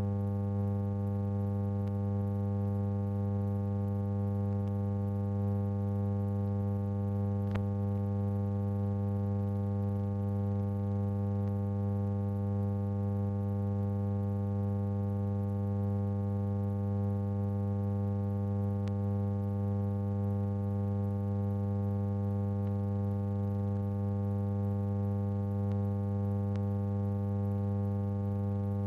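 Steady electrical hum with a ladder of overtones, strongest in the low notes, and a couple of faint clicks: the empty soundtrack of a silent newsreel transfer, carrying only mains hum.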